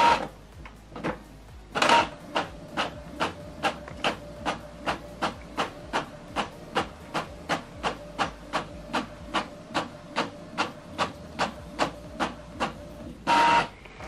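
Epson Expression Home XP-5200 inkjet printer printing a page: the print head shuttles back and forth with a regular clack about two and a half times a second. There is a louder whir about two seconds in and again near the end, when the printed page comes out.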